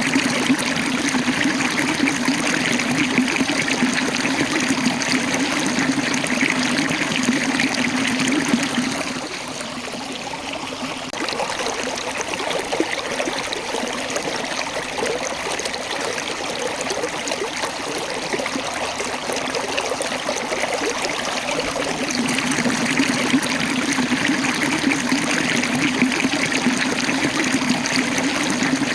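Water of a small waterfall rushing and splashing over rocks, a steady rush. It eases a little about nine seconds in and builds back up after about twenty seconds.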